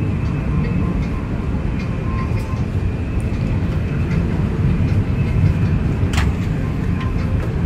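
Steady low rumble of the cabin ambience inside a parked Airbus A350-1000, with a faint steady hum over it and one sharp click about six seconds in.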